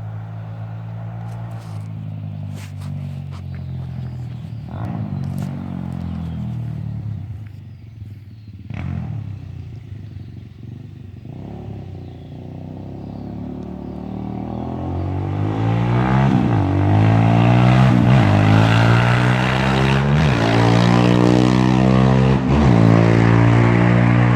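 Arctic Cat DVX 400 quad's single-cylinder four-stroke engine running low for the first half, with a few clicks. About halfway through it climbs to a loud, high-revving run, broken by several brief dips in revs.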